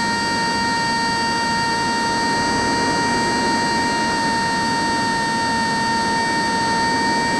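Small brushless electric motor (LT2204 2200KV) spinning a 7x3.5 propeller, a steady high whine at constant throttle with wind rush, heard from a camera aboard the model plane in flight.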